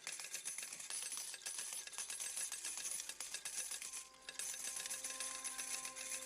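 Coins clinking and jingling in a continuous shower of small metallic clicks, with a short break about four seconds in. Soft, held music notes come in under the coins in the second half.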